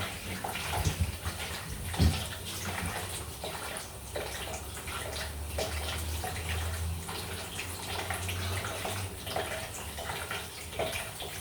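Water running steadily from a pipe that the stop cock has not fully shut off, with scattered clicks and clatters of plumbing work and a sharp knock about two seconds in. A low hum joins for a few seconds in the middle.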